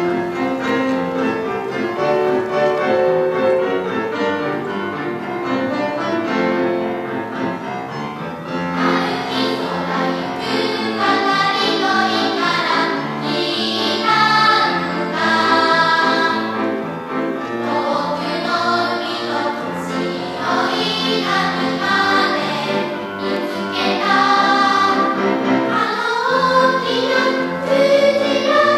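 A choir singing, with the voices swelling fuller and higher about nine seconds in.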